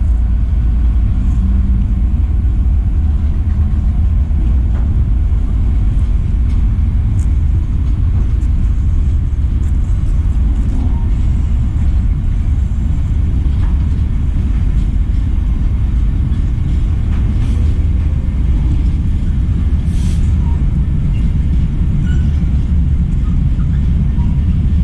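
Freight trains rumbling by: a container train running along the adjacent line while a Class 66 diesel locomotive approaches hauling container wagons, with a few faint clicks and squeals from wheels on the rails.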